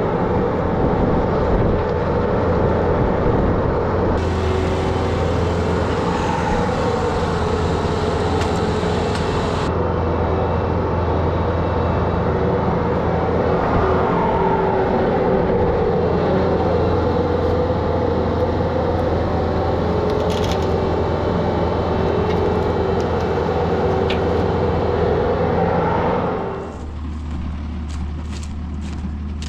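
Tractor engine running steadily, its pitch rising and falling a little. About 26 seconds in the sound cuts abruptly to a quieter, lower engine hum.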